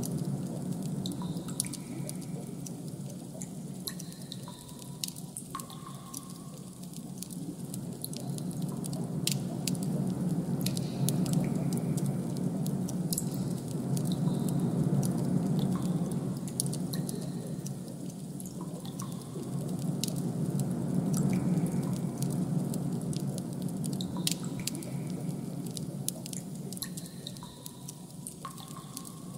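Ambient sound design: a steady low drone that slowly swells and fades, with scattered drip-like plinks and faint clicks over it.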